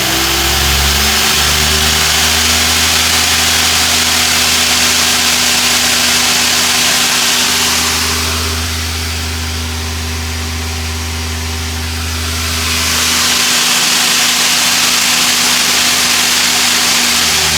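Hwacheon Hi-Tech 200A CNC lathe running under power, a steady whine over a broad hiss. The hiss eases off for a few seconds in the middle and then returns.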